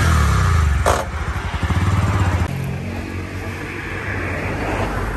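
An engine running with a pulsing low rumble, loudest at first, and one sharp knock just under a second in.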